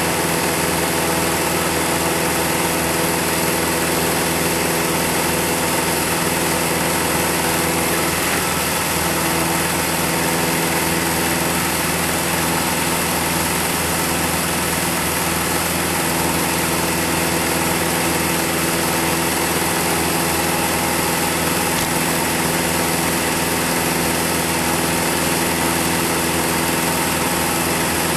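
Film projector running with a steady mechanical whir and hum.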